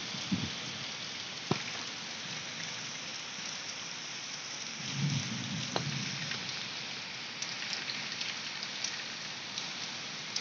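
Heavy rain pouring steadily in a storm, with a low rumble about five seconds in and two sharp ticks of drops.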